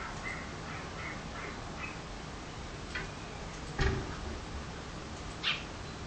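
Sparrow giving a quick run of short chirps, heard through the window glass. Then a sharp tap, and a louder thump against the window just before the four-second mark.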